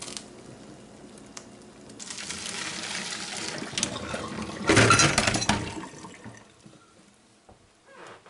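Pot of boiling water and eggs drained into a plastic colander in a sink: hot water pouring and splashing, loudest about five seconds in, then dying away.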